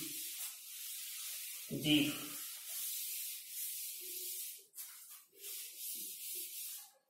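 Blackboard duster wiping chalk off a chalkboard: a dry, hissing rub, steady at first and breaking into shorter separate wipes in the second half.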